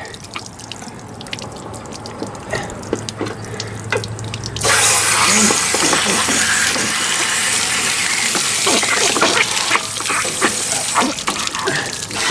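Water trickling and dripping, then about four and a half seconds in a strong rush of water starts abruptly and keeps going. This is a Camco water heater tank rinser wand flushing sediment out of an RV water heater tank, with water pouring from the drain opening.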